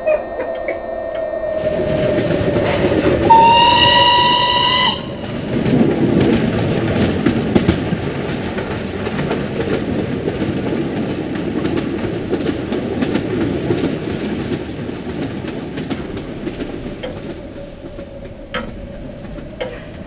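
Steam train passing: one steam-whistle blast about three seconds in, lasting a second and a half. It is followed by the rumble and rapid wheel clatter of the locomotive and carriages, which slowly fades away.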